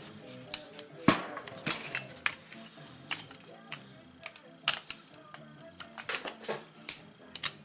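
Scattered sharp metal clicks and clinks as a small two-stroke engine's ignition coil is set against the flywheel, with the flywheel turned so its magnet pulls the coil tight. Rock music plays in the background.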